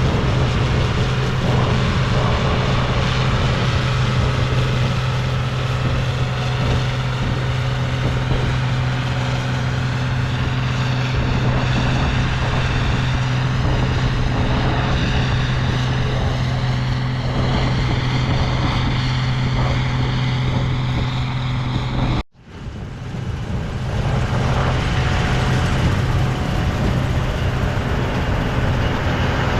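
Combine harvester running steadily under load, a constant low engine hum with machinery noise over it. The sound cuts out abruptly about three quarters of the way through, then fades back in.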